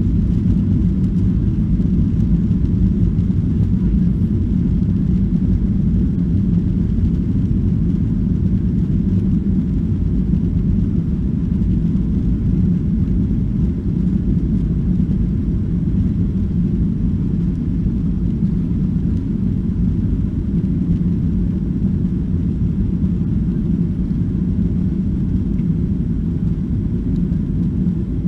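Steady low cabin rumble of a Boeing 737-800 on the ground, heard from a seat over the wing as it taxis with its CFM56-7B turbofans running.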